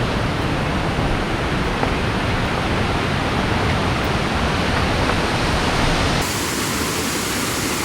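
Waterfall: a steady, dense rush of falling water with a heavy low rumble. About six seconds in the sound changes abruptly, the low rumble dropping away and the hiss growing brighter.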